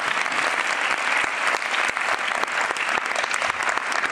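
Conference audience applauding, a steady sustained clapping in a large hall.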